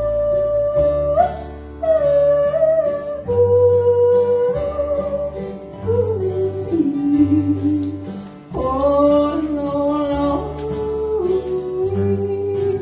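Live country music: a wordless yodel with long high held notes that jump up and down in pitch, over acoustic guitar and a steady bass line.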